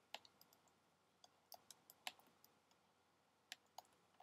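Faint, irregular sharp clicks and taps of a stylus on a pen tablet during handwriting, over near silence.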